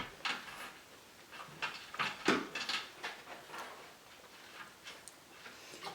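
A mouthful of dry Chex peanut butter cereal, the sweetened corn squares crunching under irregular chews.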